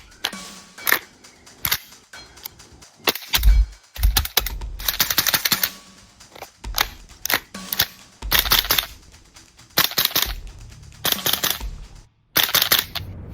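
Airsoft HK416D replica rifle firing: a few single shots at first, then repeated short bursts of rapid shots with brief pauses between them.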